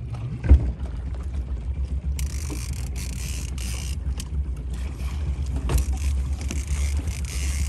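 Panga boat's outboard motor running steadily with a low hum. There is one sharp thump about half a second in, and a steady hiss joins from about two seconds in.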